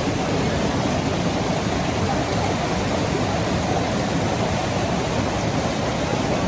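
River water rushing over falls, a steady, even rush of noise.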